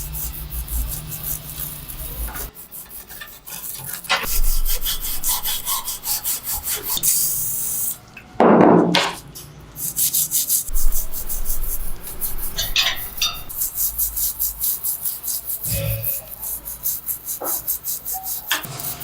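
Rhythmic hand rubbing on a part, like sanding, at about three strokes a second. About halfway through it is broken by a short hiss and a louder knock.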